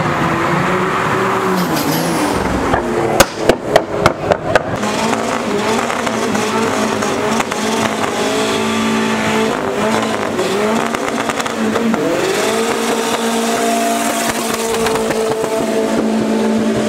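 Car engines revving hard. About three seconds in comes a quick string of five or six loud exhaust bangs. An old Volvo sedan then does a burnout, its engine climbing in steps and held at high revs while the rear tyres spin.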